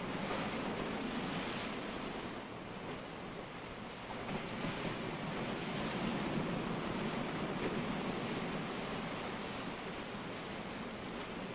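A steady rushing noise like surf on a shore, ebbing a little a few seconds in and swelling again.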